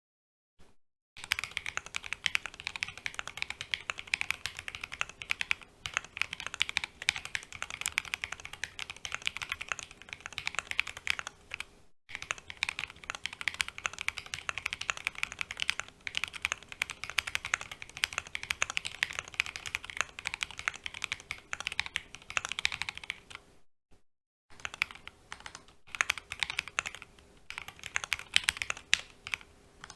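Continuous typing on a Synthesis60 mechanical keyboard with lightly lubed Jwick Black linear switches and Domikey SA-profile keycaps: a rapid stream of keystrokes starting about a second in, with brief pauses near the middle and about three-quarters of the way through.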